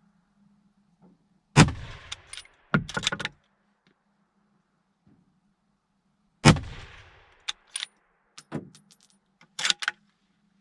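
Two rifle shots about five seconds apart, each with a long echoing tail, and each followed by a quick run of metallic clicks and clinks.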